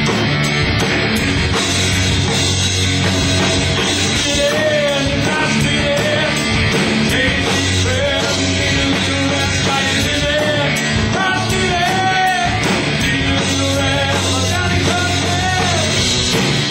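A rock band playing live and loud: electric bass, drum kit and guitar, with a melody line that bends up and down over it from about four seconds in.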